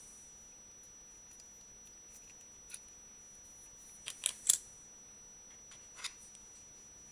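A few sharp, hard clicks over a faint steady high whine: one single click, then a quick burst of three, the loudest, about four seconds in, and one more about six seconds in.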